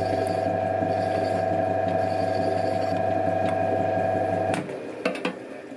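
Metal lathe running with a steady whine while a hand file deburrs the end of a spinning steel tube. About four and a half seconds in, the whine stops, followed by a few short clicks.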